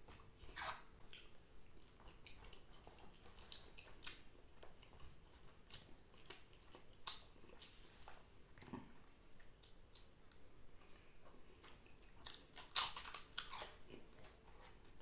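A person eating by hand: chewing and mouth smacking with scattered soft clicks, then a short run of louder sharp crackles near the end.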